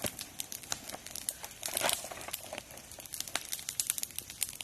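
Crinkling and rustling handling noise: many sharp crackles, with a denser rustle about two seconds in.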